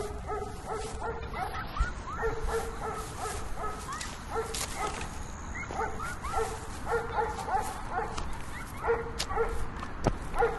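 An animal's short, pitched calls, repeated several times a second, some of them sliding up or down, with a few sharp clicks among them.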